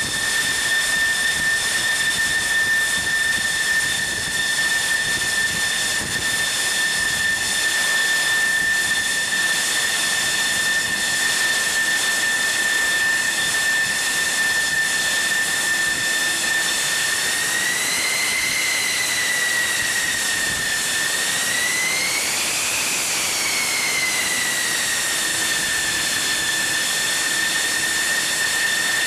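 F-14 Tomcat jet engines running on the deck with a loud, steady high turbine whine over a rushing roar. The whine rises and falls in pitch twice, about 18 and 22 seconds in, then settles back to its steady note.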